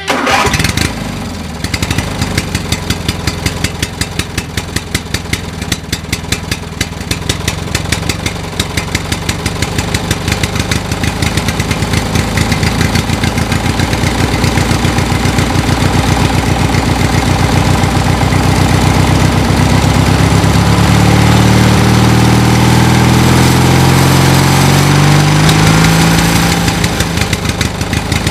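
A small engine-like motor running steadily with a fast, even pulse, working under load as the toy tractor pulls the loaded miniature truck. Its pitch climbs from about 20 seconds in and falls back near the end.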